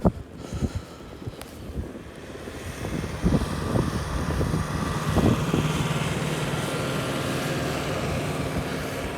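A motor vehicle's engine running with a steady hum, growing louder over the first few seconds and then holding level, over wind noise.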